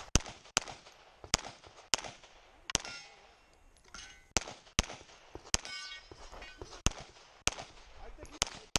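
Pistol shots fired one after another during a practical-shooting stage: about a dozen sharp, loud cracks, roughly half a second to a second apart, with a longer pause about three seconds in.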